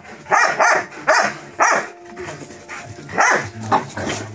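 Bouvier des Flandres dogs barking in play-fighting, about seven loud, short barks in two bunches: four in the first two seconds, then three more from about three seconds in.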